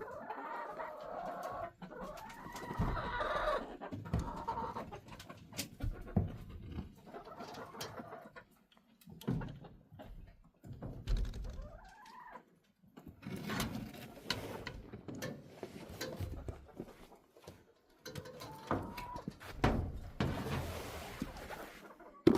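Backyard hens clucking and calling on and off, with a few short clicks and knocks mixed in.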